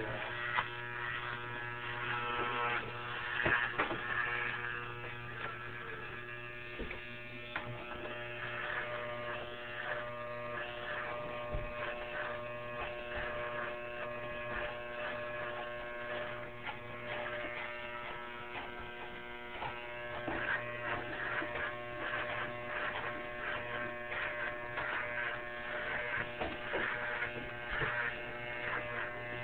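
Electric shaver buzzing steadily as it shaves, with an irregular rasp coming and going over the steady tone.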